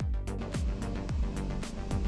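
Electronic background music with a steady beat: a deep kick drum about twice a second, with hi-hat ticks between the kicks.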